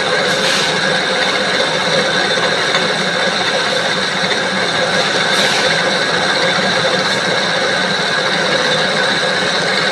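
A metalworking machine running steadily while a punch-press part is machined, a constant mechanical drone with several fixed whining tones. A brief sharp hiss cuts across it twice, about half a second in and about halfway through.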